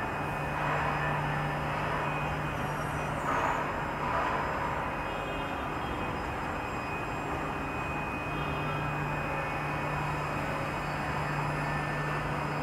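Holztek Tectra 328 CNC panel saw running: a steady mechanical whir with a low hum that fades out for a few seconds in the middle and comes back. There is a brief louder swell about three to four seconds in.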